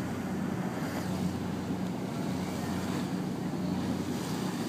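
Water bus's engine running steadily while under way, a constant low hum with an even hiss of wind and water above it.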